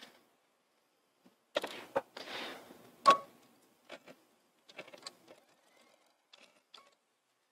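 Quiet fabric rustling and small clicks as plaid fabric is folded by hand and slid under a sewing machine's presser foot, with one sharper click and a brief metallic ring about three seconds in. The machine is not running.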